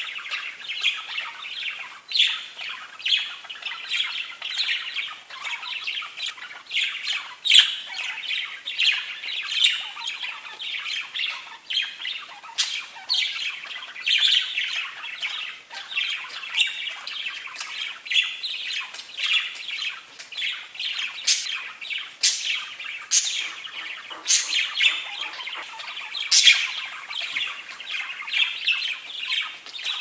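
Pet budgerigars chattering together: a steady, busy stream of quick warbling chirps, with a few sharper, higher calls standing out now and then.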